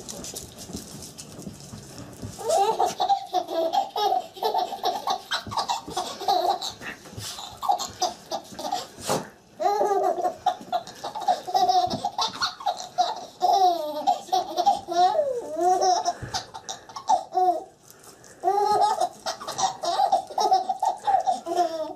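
A baby laughing hard in repeated bouts of rhythmic, high-pitched laughter, starting a couple of seconds in, with a few short pauses for breath.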